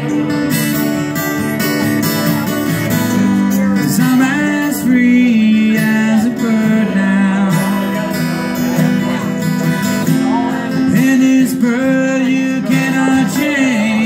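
Live acoustic string band playing an instrumental passage: strummed acoustic guitar chords under a bowed fiddle melody with slides.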